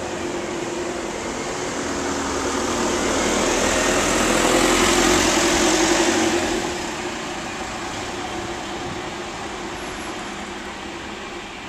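A Ford Transit van driving past close by: its engine and tyre noise swell to a peak about five to six seconds in, then fade as it moves off, leaving a steady street-traffic hum.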